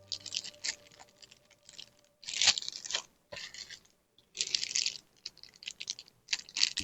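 Packaging and product being handled: a string of short crinkling, scraping bursts with brief pauses between them.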